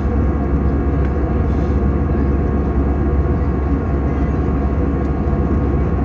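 Airliner cabin noise in flight: a steady drone of engine and airflow, heaviest in the low end, with a few faint steady tones over it.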